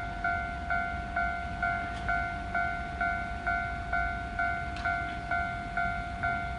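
Japanese railway level-crossing warning bell ringing, an electronic ding repeated at an even rhythm about twice a second, over a low rumble.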